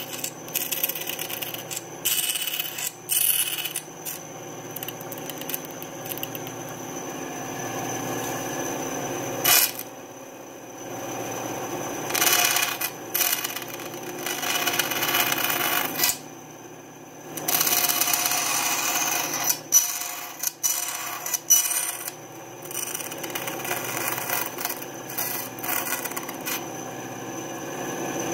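Small benchtop bandsaw running steadily while its blade cuts thin lite plywood wing ribs, the cutting coming in irregular louder bursts with a few sharp clicks as the pieces are fed and turned.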